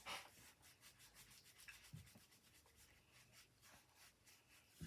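Faint rubbing strokes of an alcohol wipe scrubbing grime off the old plastic of a transistor radio.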